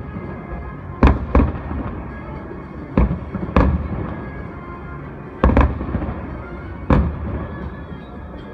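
Aerial fireworks shells bursting, about seven bangs, some in quick pairs, each with a short rumbling tail, over faint music.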